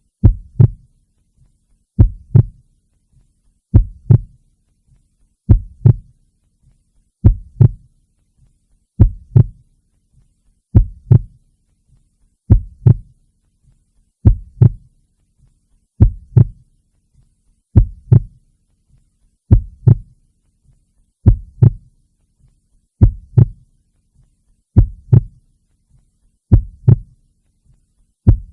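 Slow, steady heartbeat: paired lub-dub thumps, low in pitch, repeating evenly about once every 1.8 seconds.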